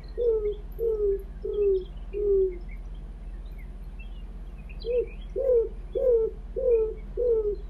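Greater roadrunner song: a run of low coos a little under two a second, each dipping in pitch, the run slowing and falling until it stops about two and a half seconds in. A second run of coos starts near five seconds. Faint high chirps of small birds are heard around the second run.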